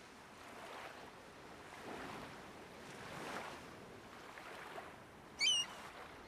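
Faint waterside ambience of wind and lapping water at a marina dock, with one short, high bird call about five seconds in.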